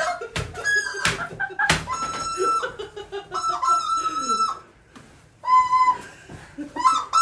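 Rubber chicken toys squawking in long, held squeals again and again, with sharp knocks in between.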